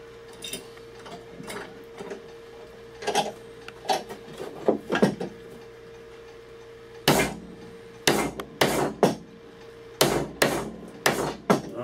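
Hand-chopping a mortise: a chisel struck with the back of a hatchet head, giving sharp wooden knocks. A few lighter taps come in the first half, then a run of harder strikes from about seven seconds in, roughly two a second.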